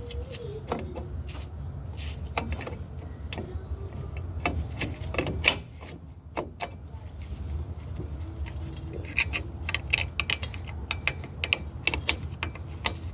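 Scattered metallic clicks and clinks of drum brake hardware being handled and fitted: hold-down pin, springs and brake shoe, over a steady low rumble. The clinks come thicker in the second half.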